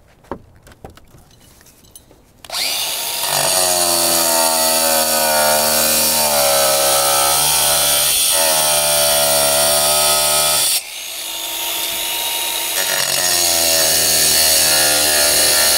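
Handheld power tool cutting through a roof slate in place, starting about two and a half seconds in after a few light clicks. Its motor whine wavers under load, dips briefly near eleven seconds, then the cut carries on.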